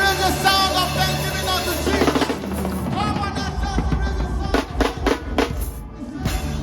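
Live gospel praise music: a singer's held notes over the band, then a run of drum-kit hits near the end.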